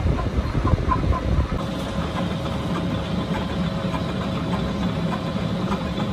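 Metal lathe running while a hob in the chuck cuts teeth into a brass worm wheel. Light ticks about three times a second over a low rumble at first, then after an abrupt change a second and a half in, a steady hum.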